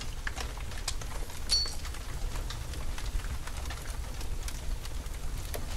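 Background noise of a recording: a steady low rumble with scattered faint clicks, and a brief high chirp about one and a half seconds in.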